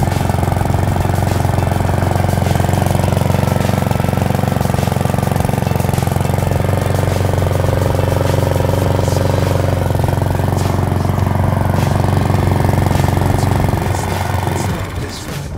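Single-cylinder petrol engine of an HPG G46SHL-B walk-behind lawnmower running steadily under load while mowing grass. It fades out near the end.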